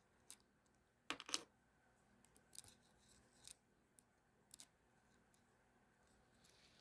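Faint, scattered clicks and ticks of small metal parts being handled while a ratcheting screwdriver's ratchet mechanism is fiddled back together. The loudest cluster comes about a second in, with a few single ticks after it.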